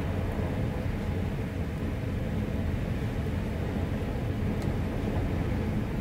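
Wind blowing against a cabin door: a steady low rumble with no high whistling howl.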